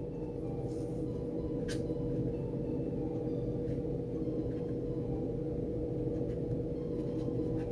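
Steady low room hum with a held mid-pitched tone, like a fan or machine running in the room. One faint sharp click a little under two seconds in.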